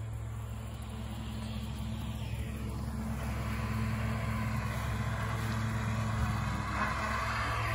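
Tractor diesel engine running with a steady low hum. A hiss builds over the second half and is loudest near the end.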